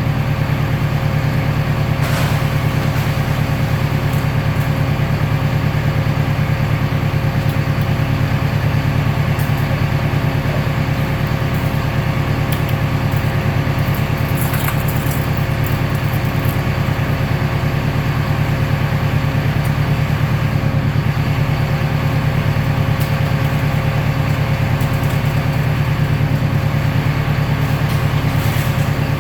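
Recycling baler machinery running with a steady low hum and a constant whine, with a few faint clicks.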